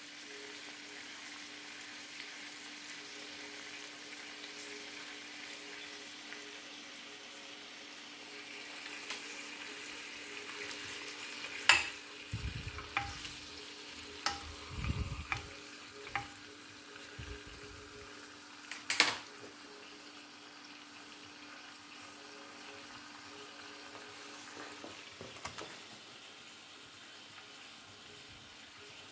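Steaks sizzling as they fry in a ridged grill pan, over a steady low hum. In the middle a fork clinks and scrapes against the pan several times as the steaks are turned over.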